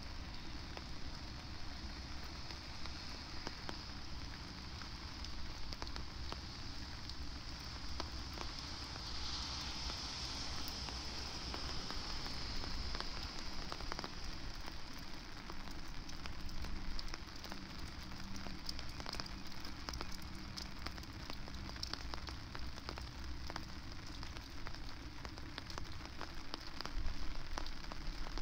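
Steady rain falling, with many small drops ticking close by, over a low rumble of wind.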